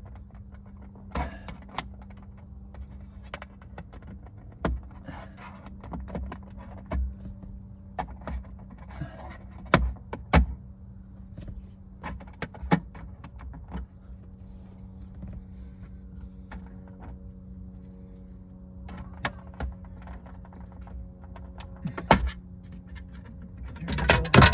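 Plastic pry tool working a windshield-module trim cover loose: scattered clicks, taps and small snaps of plastic clips, some sharper than others, over a steady low hum.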